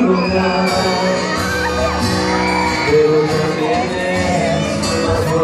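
Live pop band playing with a male lead vocal and acoustic guitars, heard from within the audience. People in the crowd whoop and shout over the music.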